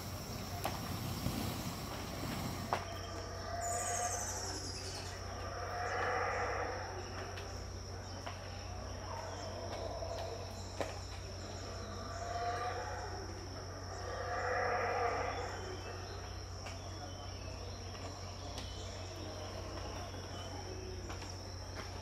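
Yucatán black howler monkeys roaring in swelling bouts a couple of seconds apart, five times and then dying away, over a steady high insect drone.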